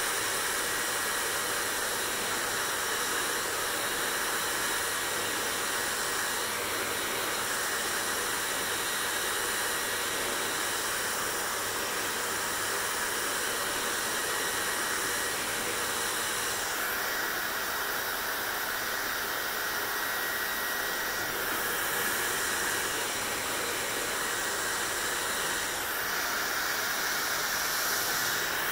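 Hair dryer blowing steadily, a continuous airy hiss whose upper tone shifts slightly a few times.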